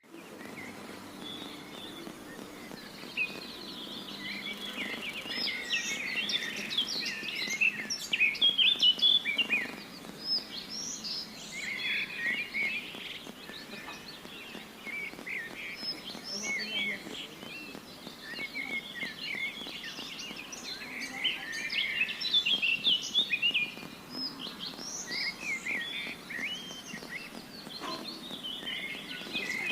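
Several birds chirping and singing at once, a dense chorus of short, quick chirps and trills that swells and dips, over a faint steady background hiss.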